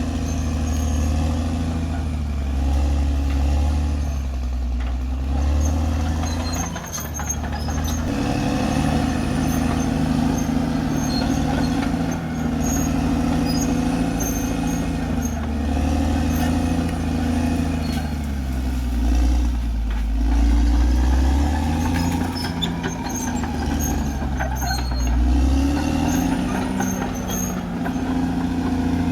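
Caterpillar D6R XL bulldozer's diesel engine running under varying load, its pitch dipping and rising again several times as it works, with scattered light clicks.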